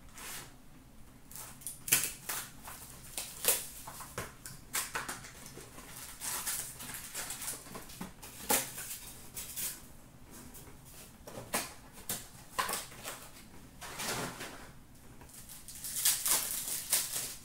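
Upper Deck Ice hockey card packs and their cardboard box being handled and opened: irregular crinkling and rustling of pack wrappers with sharp crackles, busiest near the end.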